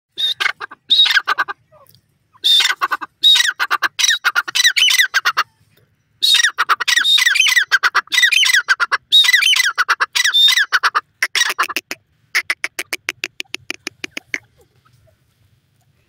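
Grey francolin calling: loud runs of rapid, harsh repeated notes in four bursts. It ends with a fast series of short, evenly spaced notes that stops about a second and a half before the end.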